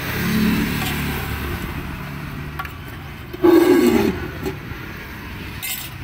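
Street traffic: a vehicle engine runs past in the first second or so, with a brief voice about three and a half seconds in.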